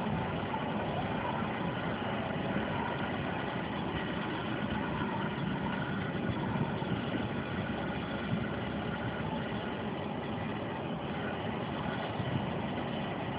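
Engines of double-decker tour coaches running steadily as the coaches drive past.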